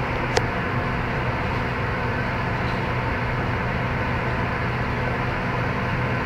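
Steady low mechanical hum over a constant hiss, unchanging throughout, with a single faint click about half a second in.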